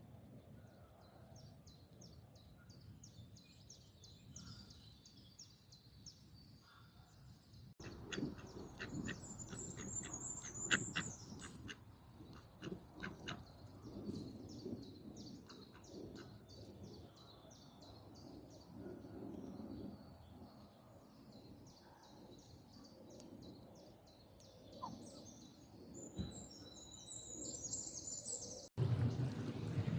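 Birds chirping and calling in rapid high-pitched series over a low outdoor background. The sound changes abruptly about eight seconds in to louder, sharper calls, and again near the end, when a louder low rushing sound takes over.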